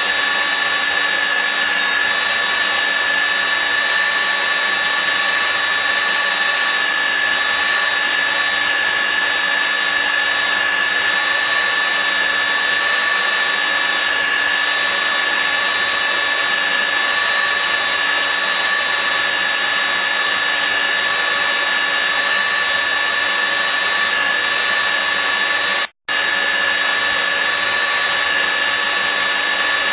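Nitto WA-5000 magnetic drill's 1150 W motor running steadily, with a constant high whine. The sound drops out for an instant near the end.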